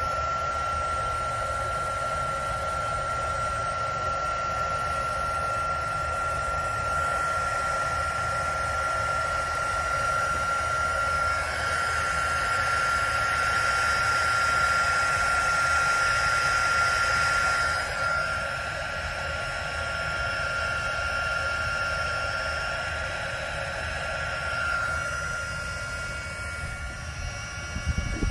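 Electric heat gun running steadily, a fan rush with a constant high whine, blowing hot air onto heat-shrink tubing over spliced wires to seal the joints. It grows louder in the middle stretch as it is held close, eases off later, and a short knock comes at the very end.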